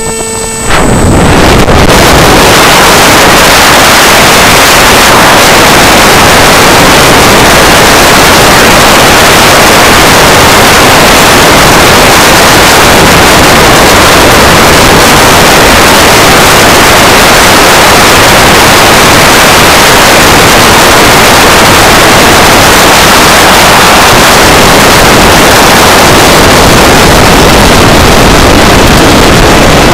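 A brief whine stops within the first second. Then a loud, steady rush of wind noise over the onboard camera's microphone on the S800 Sky Shadow flying wing in flight, hard enough to overload the recording.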